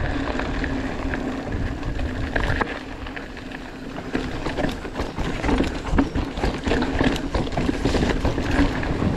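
Orbea Occam mountain bike rolling fast over a rough dirt and gravel trail: tyres crunching, with the bike rattling and clattering over bumps and a steady hum under it, and wind rumbling on the camera microphone.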